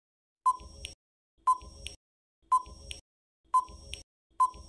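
Quiz countdown-timer sound effect: five short electronic beeps, one each second, each with a brief ticking tail.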